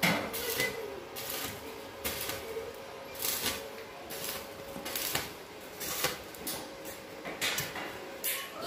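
Stick (arc) welder crackling and hissing in short repeated bursts as tack welds are struck on a light-steel C-channel canopy frame.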